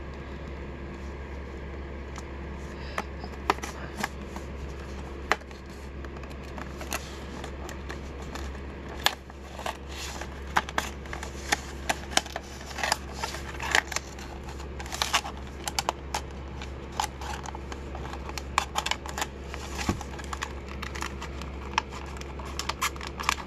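Stiff plastic blister packaging being cut and pried away from its cardboard backing with a small tool: irregular sharp clicks and crackles of the plastic, coming thicker after about nine seconds, over a steady low hum.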